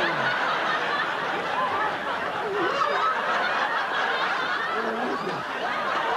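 Laughter from several voices, snickering and chuckling, with a few wavering laughs rising and falling over a dense, steady bed.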